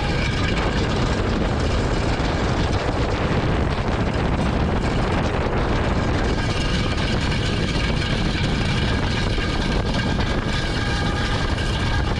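Heavy truck driving, with steady, loud engine and road noise.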